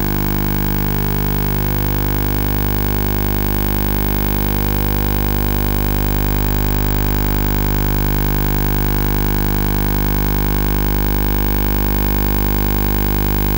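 A steady electronic buzz of many held tones at once, not changing at all.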